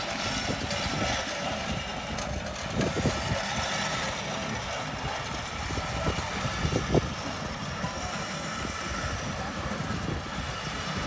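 Early-1900s vertical-boiler steam roller running as it drives slowly away, with irregular low knocks and a few sharper thumps over a steady mechanical noise.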